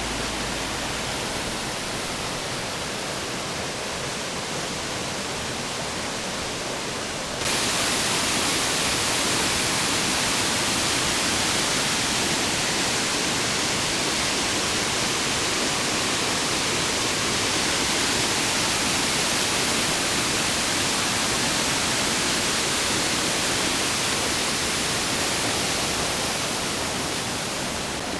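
Steady rushing water, an even hiss with no pauses, that becomes suddenly louder about seven seconds in.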